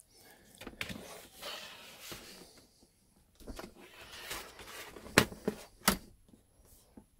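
HP 15 laptop's plastic case being handled and pressed together, with scraping and rubbing and two sharp clicks about five and six seconds in.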